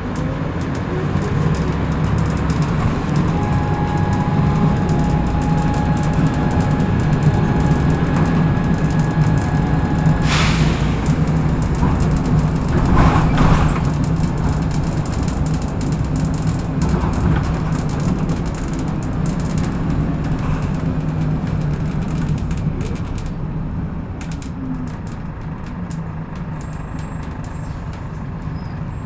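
Volvo B10BLE single-decker bus running, heard from inside. A steady high whistle, two notes together, sounds for about seven seconds, then stops as a loud sharp hiss of air is released, and a second hiss follows about three seconds later.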